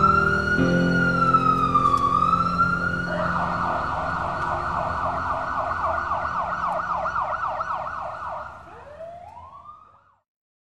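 Emergency vehicle siren: a slow rising-and-falling wail that switches about three seconds in to a fast yelp of roughly four sweeps a second, then winds down and fades out shortly before the end.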